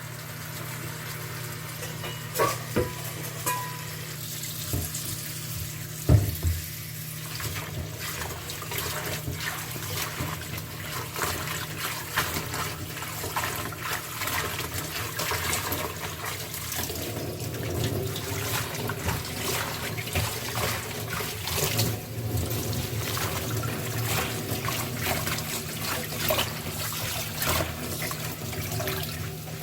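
Running water flowing steadily, with small clicks and knocks over it and a few louder knocks in the first few seconds.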